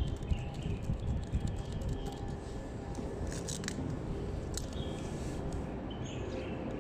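A few light clicks and rattles from handling a battery analyzer's test cable and clamp leads, over a steady low background rumble.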